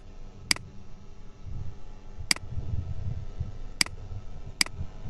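Computer mouse button clicking four times at uneven intervals, as points are placed with an editing program's pen tool, over a low background rumble.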